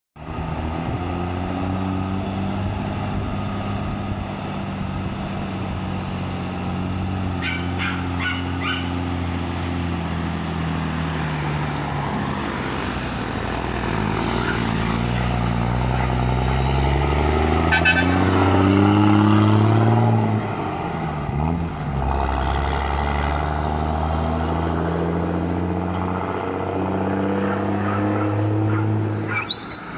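Mercedes-Benz 1113 tanker truck's inline-six diesel running, first at a steady idle, then revved: the engine pitch climbs through the middle, falls back sharply about two-thirds of the way in, and rises again near the end. A few short clicks are heard along the way.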